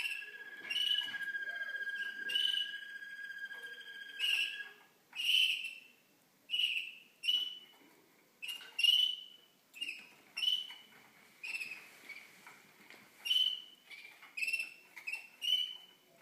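Young Malinois Waterslager canaries singing. A long, steady whistled note is held for about five seconds under short repeated notes, then the song breaks into separate short phrases about once a second.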